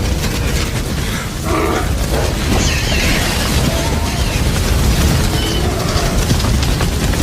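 A stampeding herd of Gallimimus dinosaurs: a dense, continuous rumble of many pounding footfalls, with scattered short shrill bird-like calls over it.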